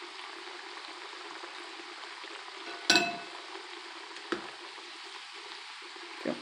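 Potato fries deep-frying in a pan of hot oil, a steady bubbling sizzle as they are par-fried. About three seconds in a metal slotted skimmer strikes with a ringing clink, followed by two lighter knocks as it stirs the fries.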